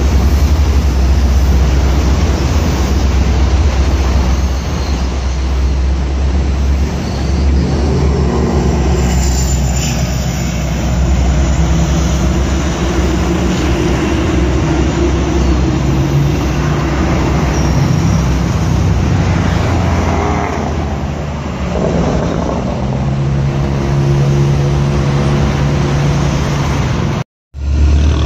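GO Transit diesel locomotive and its bilevel coaches moving through a rail yard: a steady low diesel drone with rolling train noise, the engine tone growing stronger in the last few seconds. The sound cuts out for a moment near the end.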